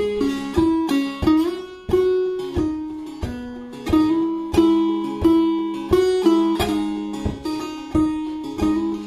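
Persian setar played in clawhammer (frailing) style. Sharply struck down-strokes pick out a slow melody over a steady low drone string.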